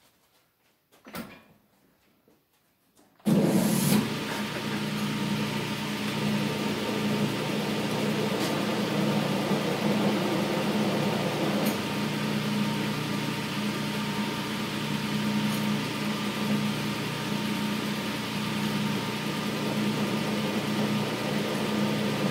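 Old Hendey metal lathe switched on about three seconds in, then running steadily with a low hum as its chuck spins a freshly chucked part to show how far it runs out.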